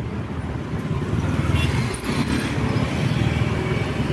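Road traffic: motor vehicles passing, a continuous mix of engines and tyres, growing a little louder about a second in.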